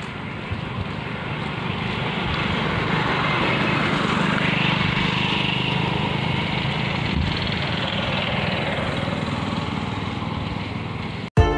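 Small motor-vehicle engines, an auto-rickshaw and a motorcycle, running as they pass along the road; the engine sound builds to a peak midway and slowly fades.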